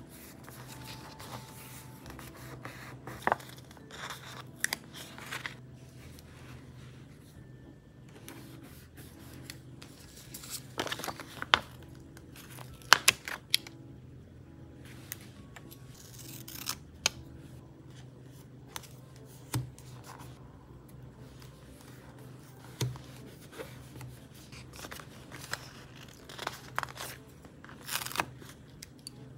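Stickers being peeled from their sheets and pressed onto a paper journal page: scattered short tearing, crinkling and tapping sounds, some in quick clusters.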